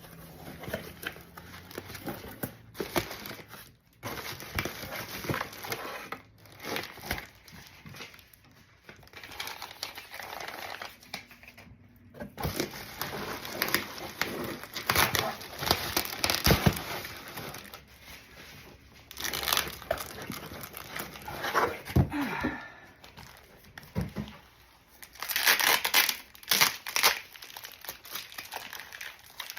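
Packing material being crinkled and torn by hand in irregular bursts as a box is opened and unpacked.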